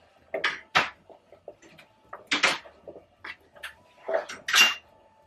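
Diced raw potato being scraped off a plastic chopping board into a saucepan of water: a run of short clattering knocks as the cubes and the board edge hit the pan, loudest about halfway through and again near the end.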